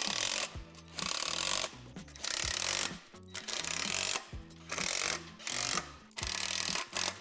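Power driver tightening bolts, run in short bursts of under a second, about seven times, with brief pauses between them. A music bed plays underneath.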